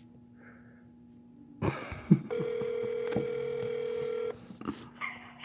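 Telephone ringback tone heard over the phone line: a line click about a second and a half in, then one steady ring of about two seconds as the outgoing call rings at the other end.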